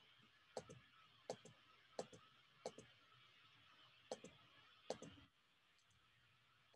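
Computer mouse clicking, faint: six quick paired clicks, each a press and release, about one pair every 0.7 seconds, stopping about five seconds in.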